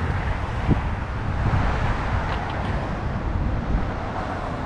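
Wind noise on the microphone over a low, steady outdoor rumble.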